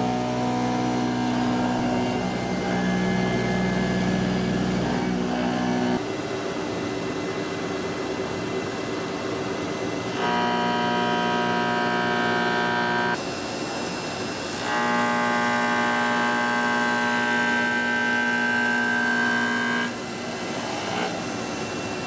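A 33 mm milling cutter on a 460 mm-long tool, turning at 3000 rpm in a TCH-L13 EVO spindle head, cutting a metal block at 2500 mm/min. The cut gives a steady pitched hum with a higher ring over it, in three spells: about six seconds at the start, about three seconds near the middle and about five seconds later on, with quieter stretches between them.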